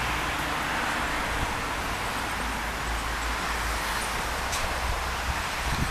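Steady outdoor background noise of distant road traffic, with a low wind rumble on the microphone.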